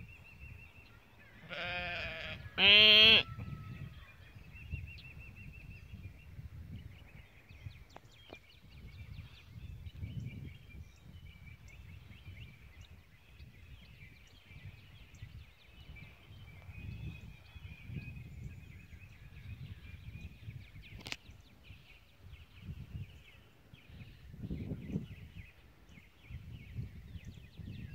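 Lambs bleating: a quieter bleat about a second and a half in, then a loud wavering bleat about three seconds in, followed by faint background rumble for the rest of the time.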